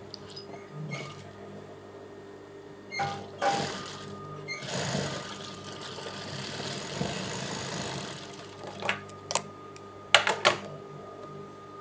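Industrial sewing machine with its motor humming steadily. It runs a stretch of stitching from about four and a half to eight seconds in, along a folded fabric edge. Sharp clicks and knocks follow near the end as the work is handled at the machine.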